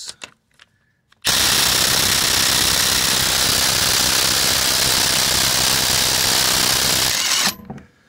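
Ridgid Octane 1/4-inch cordless impact driver hammering continuously for about six seconds on a wheel lug nut torqued to about 100 ft-lb, working it loose, starting about a second in and stopping near the end.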